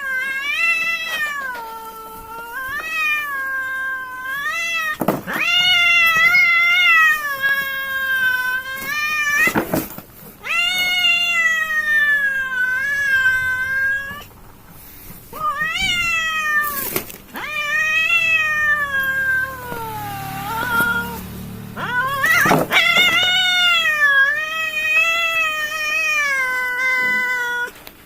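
Two cats yowling at each other in a fight standoff: long, wavering, drawn-out howls that rise and fall in pitch, one after another. A few short sharp sounds cut in, and a low growl comes about two-thirds of the way through.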